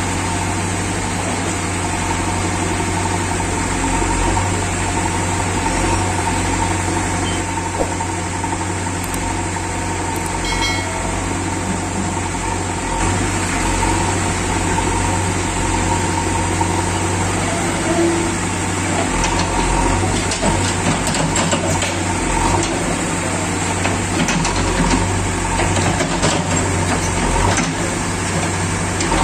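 JCB 3DX backhoe loader's four-cylinder diesel engine running steadily while the backhoe arm digs and scoops sand.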